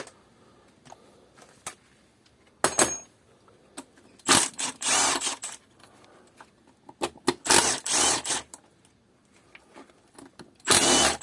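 Ratchet and 8mm socket working on tight throttle-body bolts: several separate bursts of metallic ratcheting and scraping, each up to about a second long, with quiet gaps between.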